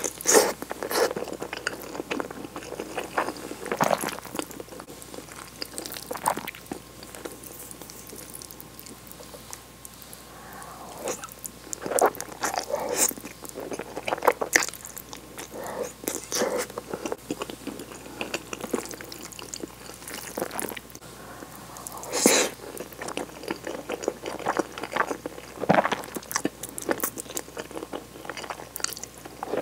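Close-miked chewing of tomato cream spaghetti: wet mouth sounds and small clicks coming at irregular intervals, with a few louder ones.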